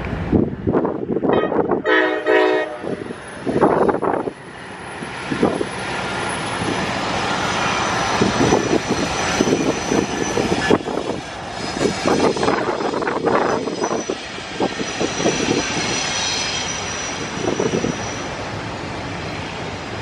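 Norfolk Southern diesel locomotives running past, with a short horn blast about two seconds in, then a double-stack intermodal train's container cars rolling by with steady wheel rumble and clatter. A thin high squeal from the wheels sounds for a couple of seconds later on.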